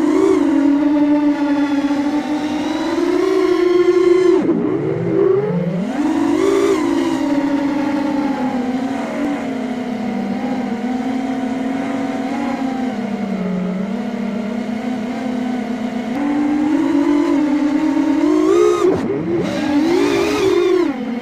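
Racing quadcopter's brushless motors and propellers whining, the pitch sliding up and down with the throttle. About four and a half seconds in the whine drops low and climbs back, and it swoops again near the end.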